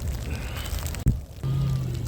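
Low outdoor noise, then an abrupt cut about a second in, followed by background music with a steady held low note.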